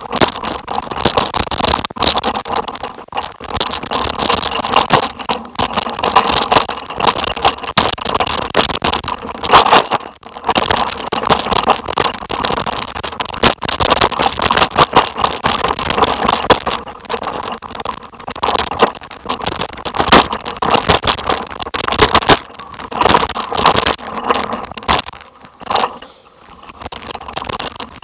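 Wheels rolling downhill over a rough, stony dirt track, with a constant crunching, rattling clatter of tyres on loose stones, easing off briefly near the middle and again near the end.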